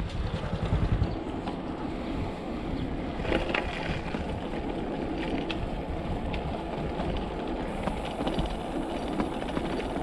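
Wind buffeting the microphone of a riding bicycle, over steady tyre rumble on the road surface, with a few light rattles about three and a half seconds in.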